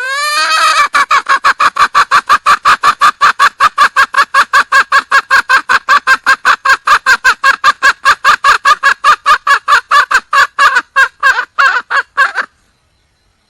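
Junglefowl hen calling for a male: a long run of fast, even clucks, about five a second, that stops abruptly near the end.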